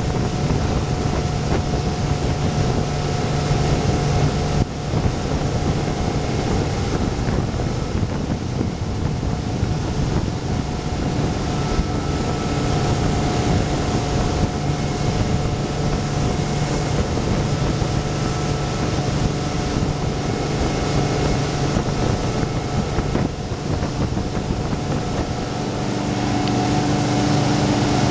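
A 24-foot Radon boat underway at speed: a steady engine drone over the rush of the churning wake behind the stern, with wind on the microphone. The engine note shifts slightly near the end.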